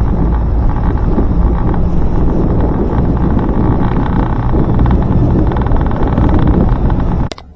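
Heavy wind buffeting the microphone over a low, steady motor hum; the sound cuts off suddenly near the end.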